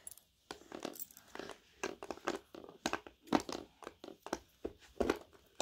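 Light rustling with small irregular clicks and knocks: toy props being handled by hand.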